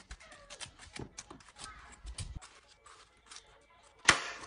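Metal spoon scraping and scooping juicy watermelon flesh from the rind, with wet crunching and chunks dropping into a ceramic dish in a rapid run of small clicks. A single loud knock sounds near the end.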